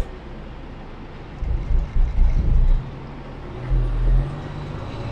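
Dump truck's diesel engine running, heard from the cab. Heavy low rumbles swell twice, about a second and a half in and again around four seconds, and a steady engine drone sets in after that.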